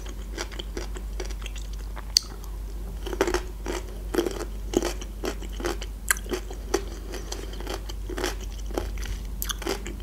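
Close-miked chewing of a crunchy pickled cucumber: irregular crunches and mouth clicks, with one sharp crunch about two seconds in.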